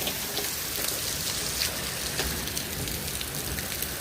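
Rain falling steadily in a thunderstorm, with many small sharp drop hits scattered through it, while the wind picks up.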